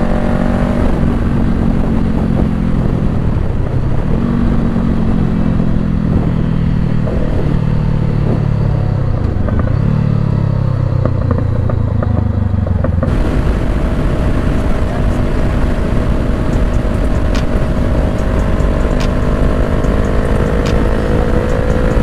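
Honda CBR500R's parallel-twin engine heard from the rider's seat. Through the first half its pitch slides down several times, each time jumping back up, as the bike slows through the gears. About halfway it changes abruptly to a steady, slowly rising tone at cruising speed with wind rushing past.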